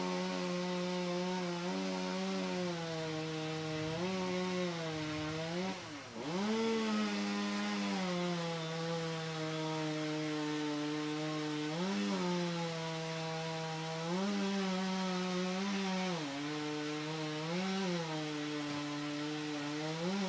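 Two-stroke chainsaw running at high revs in a cut, its pitch sagging and rising every few seconds with the load. About six seconds in it bogs down sharply and then picks back up. It stops near the end.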